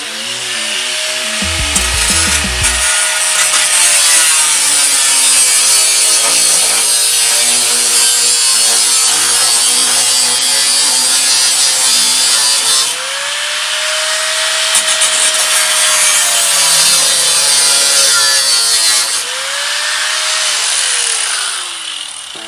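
Reciprocating saw (Sawzall) cutting van body sheet metal in three runs. Its motor speeds up at the start of each run and winds down at the end. Background music plays underneath.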